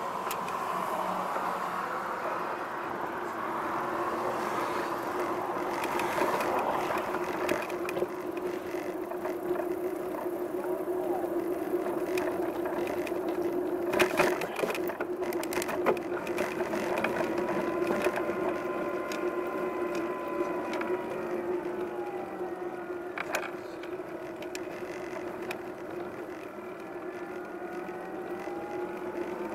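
A steady mechanical hum with a higher whine that slides down and back up in pitch over the last ten seconds or so, and a few sharp clicks.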